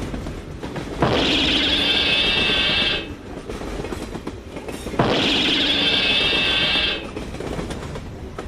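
Train running on the rails, with a loud high sustained tone that comes on sharply for about two seconds at a time, about a second in and again about five seconds in, dropping back each time to quieter running noise.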